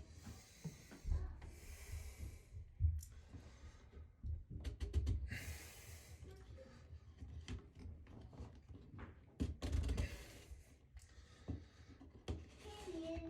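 Irregular knocks, clicks and rubbing from hand work on a shower floor drain's threaded fitting, with a few low thumps.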